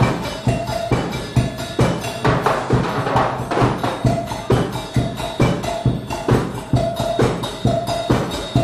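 Percussion-driven music with a fast, steady drum beat, about two to three strokes a second, over a repeating tone.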